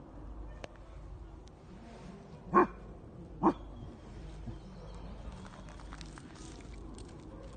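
American foxhound barking twice, about a second apart, at a bear dummy: the bay a bear-dog test is looking for.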